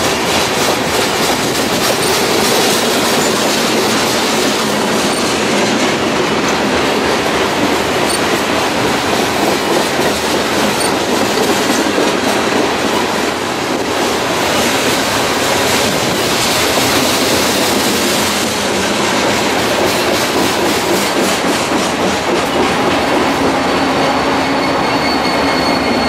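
Loaded coal hopper cars of a slow freight train rolling past with continuous wheel-on-rail noise. Near the end a steady low hum and a high whine come in as a BNSF diesel locomotive, a distributed power unit, draws alongside.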